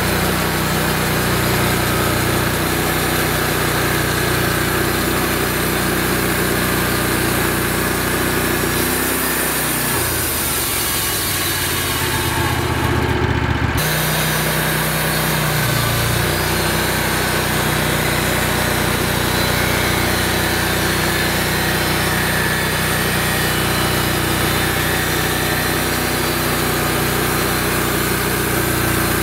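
Wood-Mizer LX150 band sawmill running steadily under load as its band blade cuts along a cherry log, the engine note even, with the sound shifting for a few seconds around the middle.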